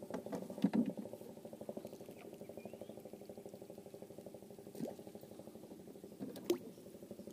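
A small engine running steadily: a low humming drone with a fast, even pulse. A few sharp clicks come on top of it, near the start and twice more later, as a freshly caught giant river prawn is unhooked by hand.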